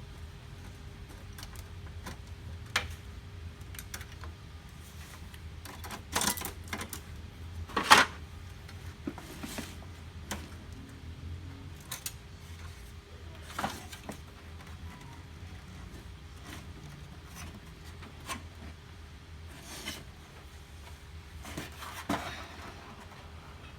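Scattered clicks and knocks of a laser printer's plastic and metal parts being handled and unclipped during disassembly. The loudest are about six and eight seconds in, over a low steady hum.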